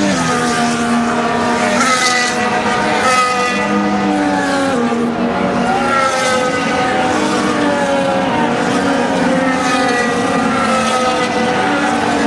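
Formula 1 cars' engines going by at speed one after another. Each engine note sweeps down in pitch as the car passes, several in quick succession over a constant loud engine noise.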